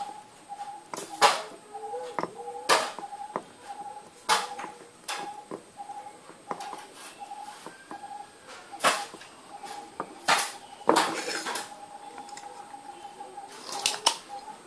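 Soldering iron and circuit board being handled on a wooden bench: irregular sharp clicks and taps, about a dozen, over a faint high tone that pulses about three times a second.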